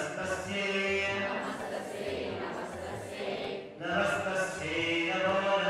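Hindu devotional chanting: voices intoning a hymn in long, drawn-out phrases over a steady low beat, with a short break between phrases near the end.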